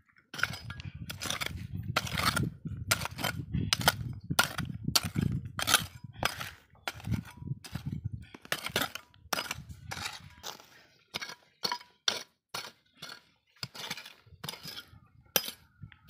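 A hand hoe chopping into stony soil, about two strokes a second, each blow a sharp knock with the clink of the blade on stones and gravel.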